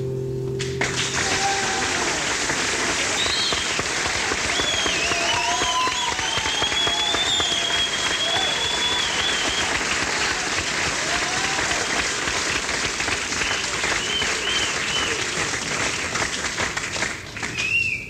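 Audience applauding, with whistles and shouts, as the last acoustic guitar chord of a song dies away in the first second. The applause thins out near the end.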